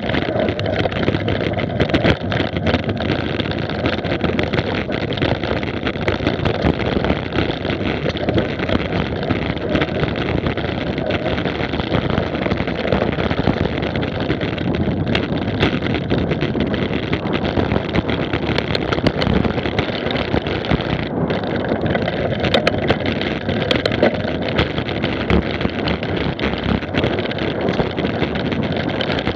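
Wind rushing over a bike-mounted camera's microphone as a mountain bike rides fast on a dirt track, with the tyres rolling over the rough ground and frequent clicks and knocks as the bike rattles over bumps.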